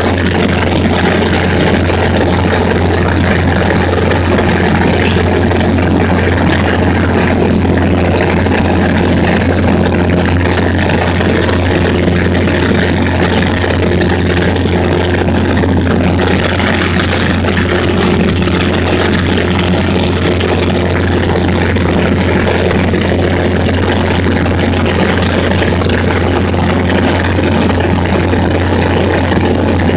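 Steady, loud drone of an airplane's engine and airflow heard from inside the plane during a ride, with a constant low hum underneath and no change in pitch.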